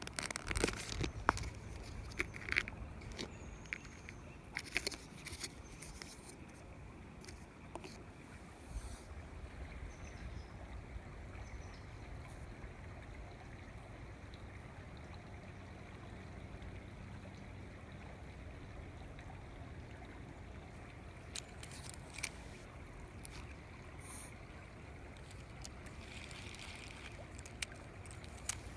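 Faint, steady creek ambience: water trickling under a low rumble and hiss. Scattered short clicks and rustles are heard, mostly in the first few seconds and again a few times near the end.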